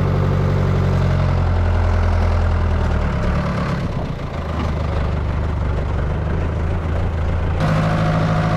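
Farm tractor engine running steadily. Its tone shifts about four seconds in and changes abruptly near the end.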